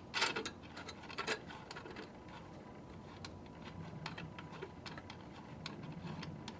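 Scattered light clicks and taps of gumball machine parts being handled while a small nut under the mechanism is loosened, with a couple of sharper clicks near the start and about a second in.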